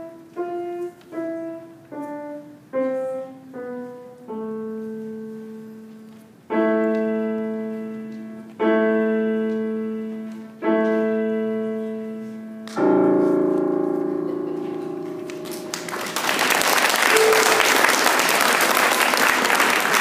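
Grand piano closing a piece: a falling line of single notes, then four loud chords about two seconds apart, the last left to ring. Audience applause starts about four seconds before the end.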